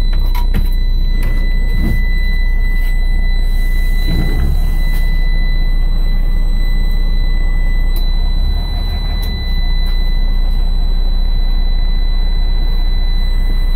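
Scania L94IB bus's DC9 five-cylinder diesel idling steadily, heard from the driver's cab, a deep constant rumble. A steady high-pitched tone runs over it, and there are a few light knocks in the first seconds.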